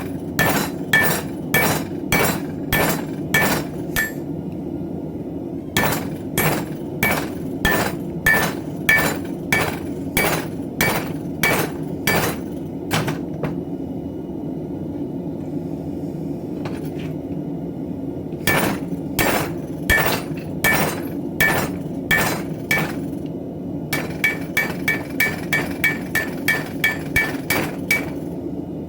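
Hand-forging hammer striking knife steel on an anvil, in runs of ringing blows about two a second with short pauses between; the last run is quicker. A steady low rushing noise runs underneath.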